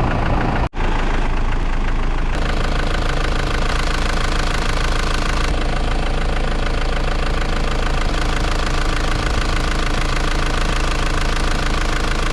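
Toyota Land Cruiser 78 Prado's engine idling steadily, broken by a brief gap in the sound near the start.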